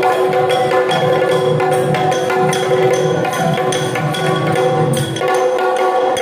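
Traditional Yakshagana accompaniment: a steady held drone under hand cymbals striking a regular beat, with drumming.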